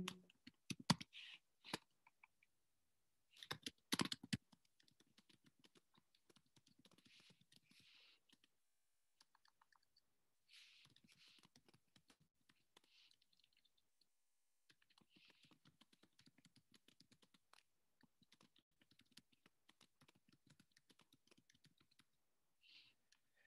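Typing on a computer keyboard: two short runs of key clicks in the first few seconds, then near silence.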